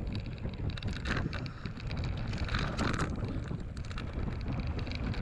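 Wind buffeting the microphone over the rumble of a mountain bike's knobbly tyres rolling down a rough dirt track, with many short clicks and rattles.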